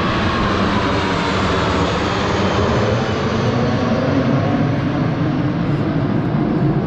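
Formation of JASDF T-4 and T-400 twin-jet trainers flying past, a loud steady jet rush with an engine whine that falls slightly in pitch during the first second.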